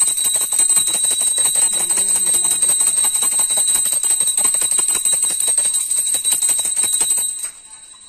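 Puja bell rung rapidly and continuously, a steady high ringing over fast clapper strikes, which stops suddenly about seven and a half seconds in.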